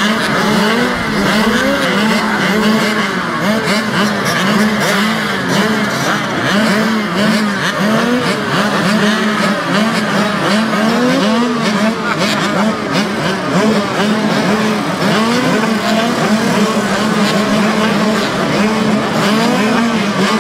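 Several small youth dirt bike engines revving together at a motocross starting gate, their throttles blipped up and down over and over while the riders wait for the gate to drop.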